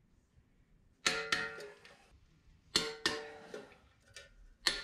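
Metal-on-metal clanks as a wheel hub bearing assembly is fitted to a steering knuckle: two sharp strikes, about a second in and near the middle, each ringing briefly, then a few lighter clicks near the end.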